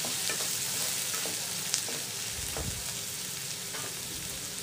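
Chopped onion sizzling steadily as it sautés in hot oil in a kadai, with a few faint ticks.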